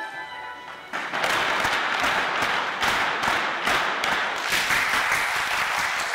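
A crowd applauding, the claps falling in a steady rhythm, beginning about a second in as the music drops away.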